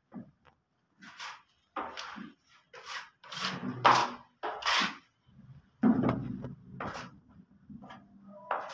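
Steel putty knife scraping wall putty across a ceiling and working it on its tray, in a run of short, irregular scraping strokes.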